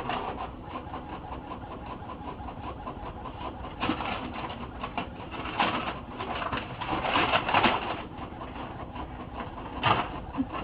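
Inkjet printer running, its mechanism making a quick, evenly repeating pulsing chatter, with several louder rustles of paper as a cat paws at and drags the printed sheets.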